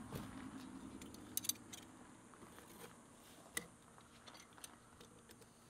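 Pliers and freshly cast copper pieces clicking and tapping as they are dug out of oil-bonded casting sand: a few light metallic clicks, the sharpest two close together about a second and a half in and another about three and a half seconds in.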